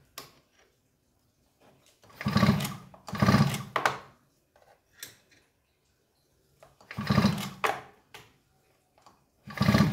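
Stihl MS210 chainsaw's recoil starter pulled four times, spinning the engine over freely with the spark plug out to check for spark: a short whirring rattle with each pull.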